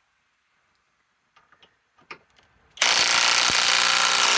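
Kobalt compact cordless impact wrench hammering for about two seconds, starting a little after halfway through after a few faint clicks, as it breaks loose a nut torqued to 329 foot-pounds.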